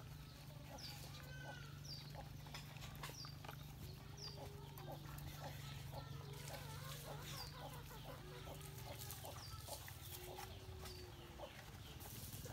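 Faint chickens clucking, with short high chirps repeating about every half second.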